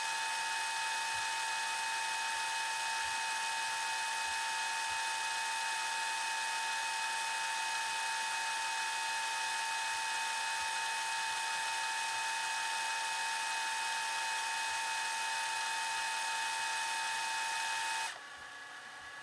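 Camcorder tape transport fast-forwarding: a steady high motor whine over hiss that cuts off suddenly near the end, leaving a faint hiss.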